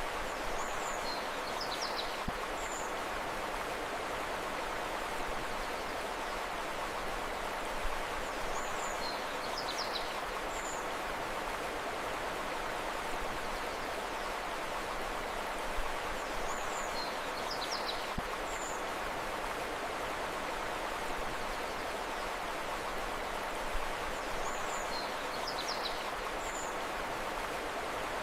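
Steady rushing of flowing river water. Over it, the same short burst of high bird chirps recurs about every eight seconds, four times.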